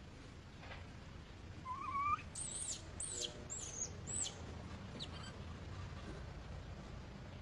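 Infant long-tailed macaque giving distress calls while another monkey pulls at it: a rising, wavering whimper about two seconds in, then a quick run of short, very high, falling squeals, and a few fainter ones after.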